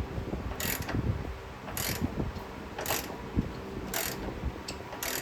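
Ratchet wrench clicking in short runs, about once a second, as an 18 mm subframe bolt is run down tight.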